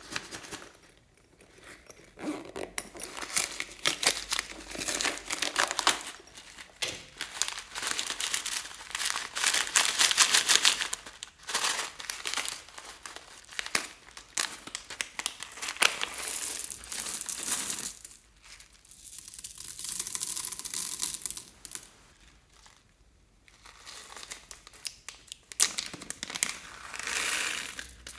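Small clear plastic bags of beads crinkling and tearing as they are handled and opened by hand, in several bursts a few seconds long with short pauses between them.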